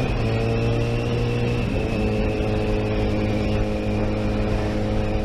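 Honda CBR1000RR sportbike's inline-four engine running at steady revs, heard onboard with wind rush. The engine note drops once, about two seconds in, then holds steady.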